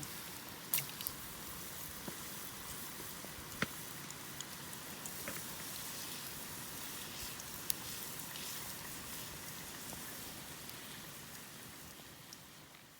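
Oil sizzling steadily with scattered sharp pops as food fries at low temperature, fading near the end.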